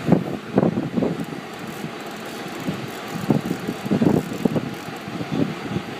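Wind buffeting the microphone in irregular gusts over the steady drone of the fishing boat's engine.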